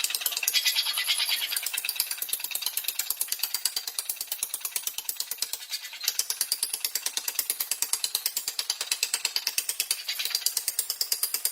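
Rapid, evenly spaced mechanical strikes on steel, about seven a second, as a machine hammers or works metal in a steady rhythm.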